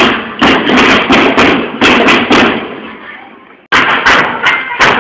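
School marching drum band drumming: sharp drum strokes in a quick rhythm. The strokes fade away about three seconds in, then drumming cuts back in abruptly at full level.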